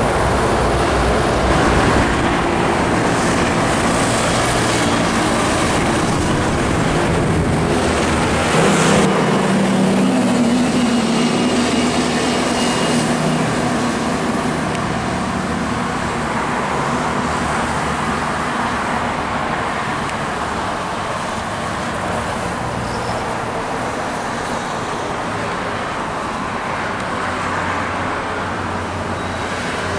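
Busy-road traffic noise as MAN TGS tractor-trailer trucks pass, their diesel engines droning low under the tyre and road noise. The sound shifts abruptly about nine seconds in.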